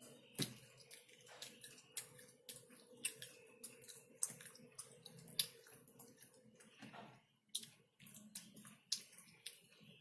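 Close-miked chewing of chicken: irregular wet mouth clicks and smacks, one or two a second, over a faint steady hum.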